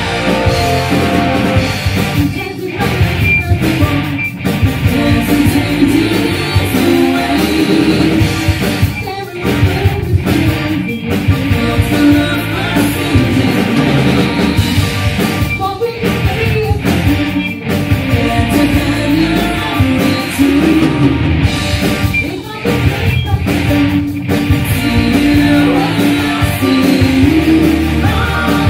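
Live rock band playing loud: a woman singing lead over electric guitar, bass guitar, keyboard and drums, with a few brief stops in the music.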